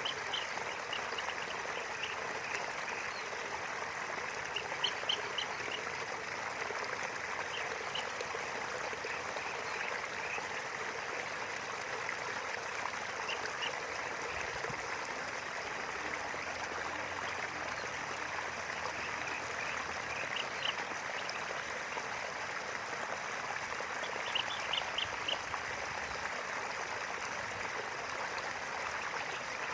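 River water flowing steadily, with short runs of quick bird calls every several seconds, each run a few notes long.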